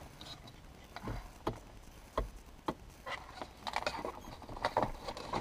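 Light clicks and knocks of a metal cabin light fixture and its plastic diffuser being handled and fitted up into the ceiling opening. There are a few separate taps in the first half and a denser clatter near the end.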